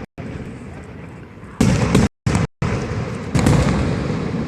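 Two loud gunpowder bangs, one about one and a half seconds in and another near three and a half seconds, each echoing away over a steady street din. The audio drops out briefly near the start and twice in the middle.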